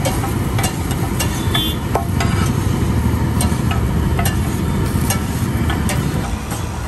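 Long-handled metal spatula scraping and tapping on a large flat iron griddle as a paratha frying in butter is flipped and pressed, with a light sizzle. Under it runs a steady low rumble of road traffic.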